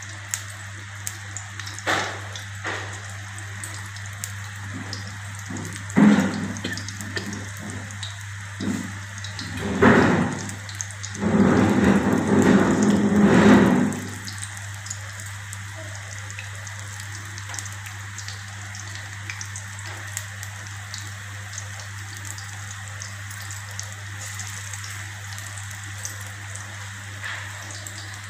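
Paneer pakoras deep-frying in hot oil in an iron kadhai, a steady fine crackling sizzle. There are louder noisy bursts around 2, 6 and 10 seconds, and a louder stretch from about 11 to 14 seconds.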